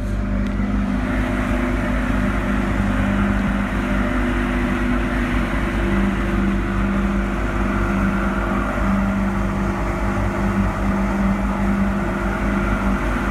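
Engine of a small inflatable motorboat running steadily at speed, a constant drone over the rush of water from the wake.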